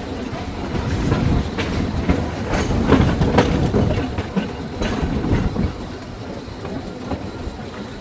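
1926 Wason-built Springfield Electric Railway No. 16 trolley car rolling along the track, heard from aboard: a steady rumble with wheels clicking over the rail joints. It is loudest in the middle and eases off in the last few seconds.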